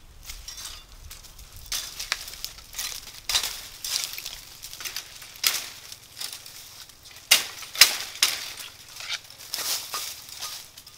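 Dry leaf litter and bamboo twigs crunching and rustling in irregular bursts as someone crouches and moves through a dry bamboo thicket, the loudest crackles a little past halfway.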